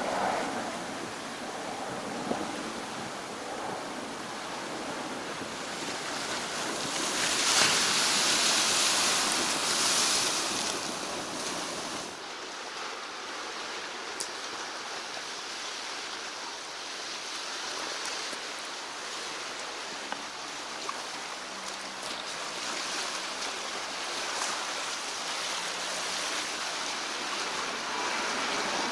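Sea surf washing on the shore, with some wind on the microphone. One bigger surge swells up about seven seconds in and eases off again a few seconds later.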